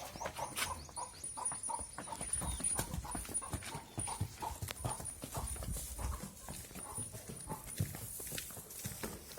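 Hooves of a dairy animal stepping and shuffling on hard ground, giving irregular knocks and clops.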